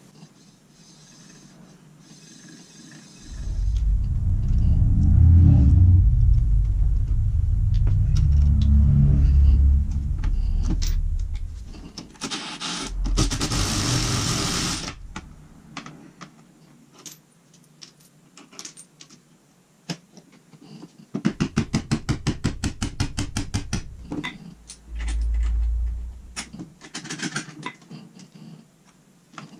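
Workshop tool noise as a scooter front wheel is taken apart: a long low running sound, a brief hiss, then a fast, even rattle of a power tool lasting a few seconds.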